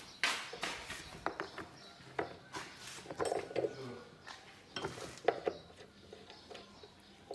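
Irregular knocks and clicks from hand tools and bolts as a plastic mouldboard is bolted onto a plough, with a few busier bursts of handling noise.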